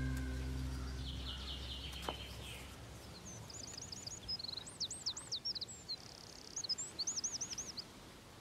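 Background music fading out, then small birds singing: runs of quick, looping high whistles and chirps over a faint outdoor hush.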